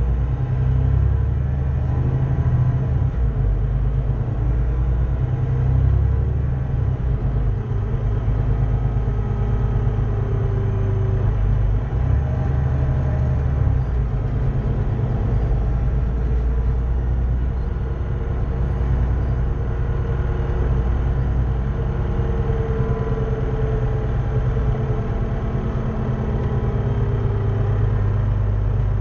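Cummins ISBe 6.7-litre six-cylinder diesel engine of a VDL DB300 double-decker bus running with a steady low rumble, with faint whines that rise and fall.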